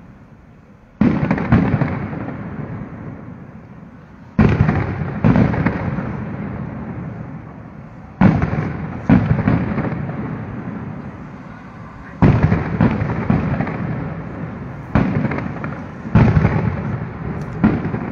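Aerial firework shells bursting: about ten sharp bangs a second or a few seconds apart, some in quick pairs, each trailing off in a long rolling echo.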